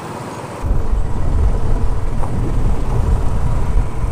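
Royal Enfield Bullet motorcycle riding in traffic, its engine running under road noise. About half a second in, the sound jumps suddenly to loud, low, irregular wind buffeting on the microphone.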